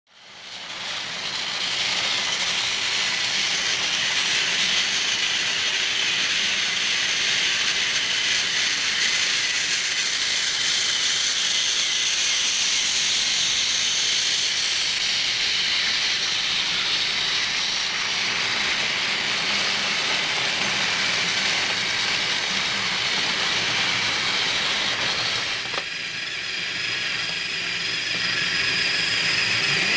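Battery-powered plastic toy trains running on plastic track: a steady high whir of the small gear motors with wheel and track rattle. About 26 seconds in the sound dips briefly and changes as a different train is heard.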